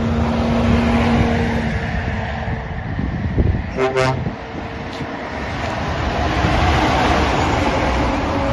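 Heavy Scania trucks driving past, engines and tyres running, with a short horn toot about four seconds in. The sound grows louder near the end as the next truck passes close.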